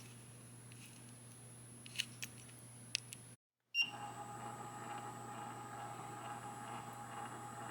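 Quiet room tone with a few faint light clicks, then a brief dropout to dead silence. After it, a steady faint hum with a thin high whine.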